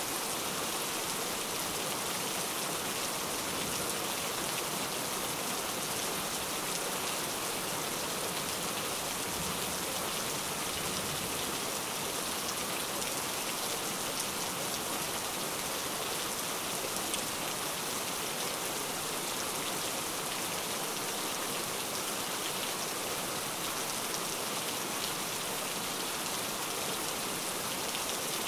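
Steady rain: an even, unbroken hiss with fine specks of drop sounds in the treble, holding level throughout.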